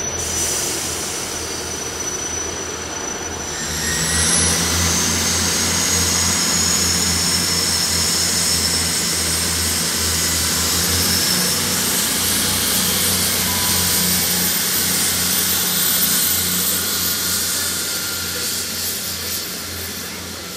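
Diesel multiple unit's engines running with a steady low drone that grows louder about four seconds in, as a high whine glides up over the next few seconds.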